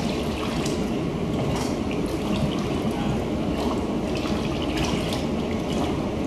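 Watery paper pulp poured steadily from a plastic pitcher into a stainless-steel sink, splashing and trickling with many small splashes. It is the vat being filled with pulp for forming a sheet of paper by hand.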